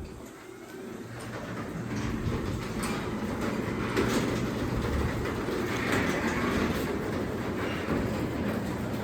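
Craftsman 3/4 hp belt-drive garage door opener running and raising the door: a steady motor-and-belt rumble with the rattle and clatter of the door's rollers and sections in the track, building over the first couple of seconds, with occasional clicks.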